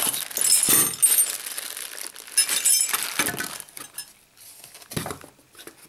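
Plastic bags of small metal parts (screws and mounting brackets) crinkling and clinking as they are handled, in several short bursts that are loudest in the first three seconds.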